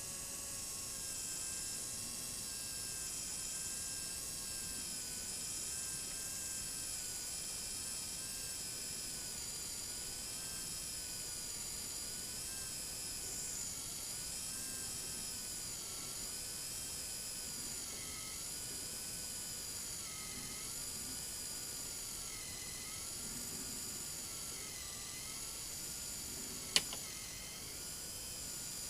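A steady high-pitched whine, its pitch wavering gently up and down about once a second, with one sharp click near the end.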